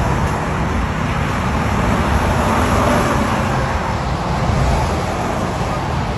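Steady rumble of a vehicle moving along a concrete road, engine and tyre noise with no sharp events.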